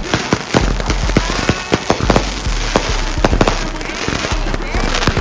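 Consumer fireworks going off: a rapid, irregular string of sharp bangs and crackles, several a second. A brief faint whistle sounds about a second and a half in.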